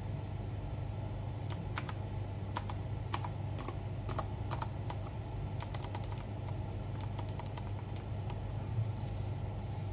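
Keys being pressed on a Machenike K600 custom mechanical keyboard: irregular clicks, singly and in quick little runs, starting about a second and a half in, over a steady low hum.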